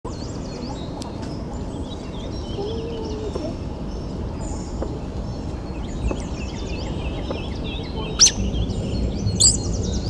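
Several birds chirping and calling with quick high chirps and trills, and two louder sharp calls near the end, over a steady low rush of flowing water.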